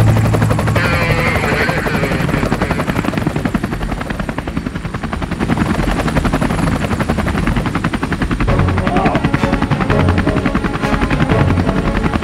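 Helicopter in flight: the rotor blades chop in a fast, steady rhythm over the engine running continuously.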